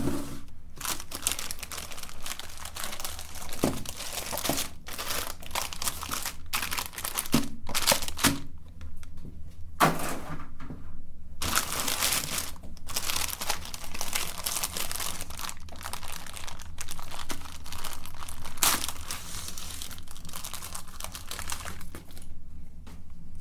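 Electric meat grinder running with a steady motor hum while ice cream is fed through it, giving a continuous crinkling, crunching crackle with frequent sharp cracks.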